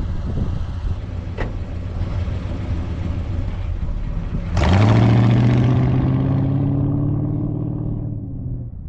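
1977 Ford LTD's V8 engine at full throttle: over steady road and wind noise, the engine note jumps up sharply about halfway through and climbs steadily in pitch as the car accelerates hard, then fades near the end.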